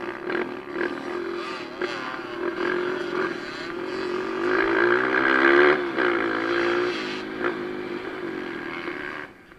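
Onboard sound of a Kawasaki KLX 150 dirt bike's single-cylinder four-stroke engine at race pace. Its pitch climbs as the throttle opens about halfway through and is loudest there. It then eases back and drops away sharply just before the end.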